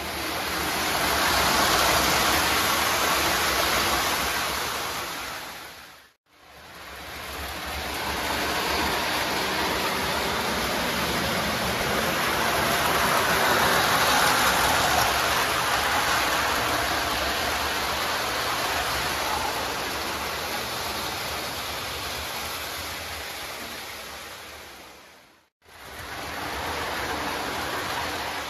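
Lionel Santa Fe ALCO FA model diesel locomotives and their cars running on a model railway layout: a steady rolling rumble of wheels and motors on the track. The sound fades out and back in twice, about six seconds in and near the end.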